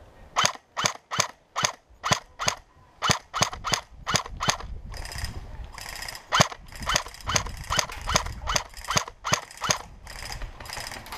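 Airsoft rifle firing single shots in quick succession, sharp cracks at about two to three a second, slightly uneven, keeping up through the whole stretch.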